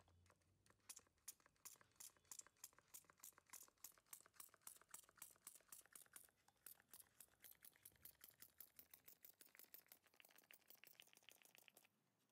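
Small pump spray bottle being pumped rapidly, about three faint spritzes a second, misting liquid onto eyeglass lenses; the spritzes fade and stop near the end.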